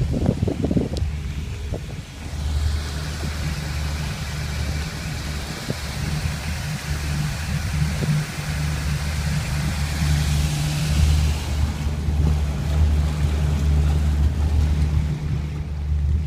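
Boat engine with a freshly reassembled sterndrive outdrive running steadily in gear, a low even hum, with its propeller churning the water into a rushing wash from about two seconds in until about eleven seconds.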